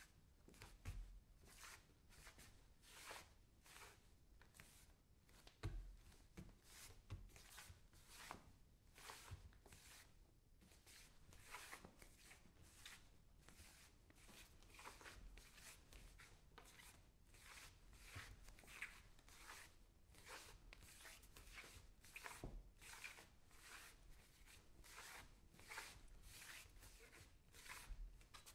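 Bare feet scuffing and sliding on a wooden floor: a faint, continuous run of short rubbing scuffs, about two a second, with an occasional soft low thump of a footfall.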